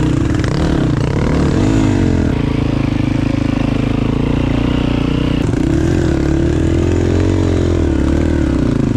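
Dirt bike engine running at low speed, its pitch rising and falling repeatedly with small throttle changes.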